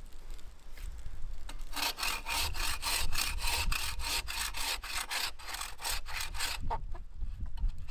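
Bow saw cutting through a tree branch by hand: fast, even strokes, about five a second, starting a couple of seconds in and stopping shortly before the end.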